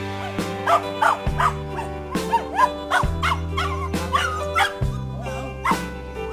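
Background music with slow, sustained chords changing about once a second, over a tan short-haired dog's short, repeated yelps and whines as it is held back from its injured owner. The dog's cries are the loudest sounds.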